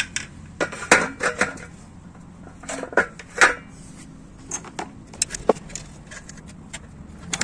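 Metal engine parts clinking and knocking as shafts and small parts are handled and fitted into an open aluminium crankcase half of a Yamaha LC135 engine: irregular sharp taps, the loudest about a second in and again about three and a half seconds in.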